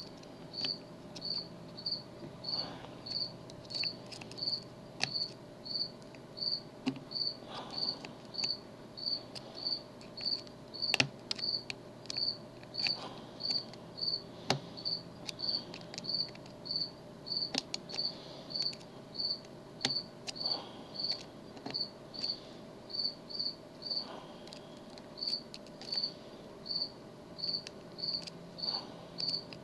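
A cricket chirping steadily, a little under two short high chirps a second. Over it come scattered faint metallic clicks of a tubular lock pick working the pins of a tubular lock, with one sharper click about eleven seconds in.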